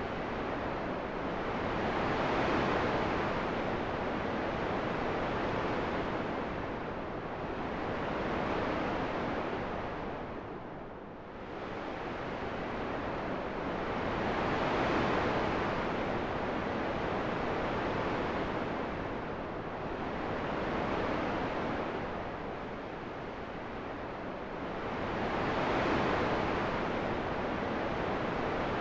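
Rushing wind noise that swells and fades in slow gusts, about every six seconds.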